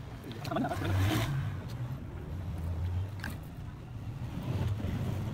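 A knife paring wood from a cricket bat's blade gives a couple of short, sharp scrapes, about a second in and again after three seconds. Under them run a low steady hum, like a nearby engine, and voices talking in the background.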